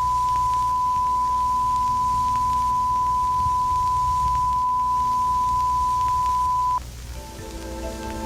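A steady, loud 1 kHz sine tone, a broadcast test/alert tone, holds at one pitch and cuts off abruptly about seven seconds in, with a low hum beneath it. Soft, gentle music with sustained mallet-like notes then begins.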